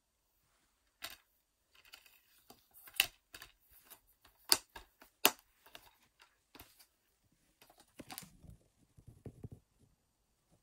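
Plastic DVD cases being handled: a series of sharp clicks and snaps, with light rustling between them and some dull knocks near the end.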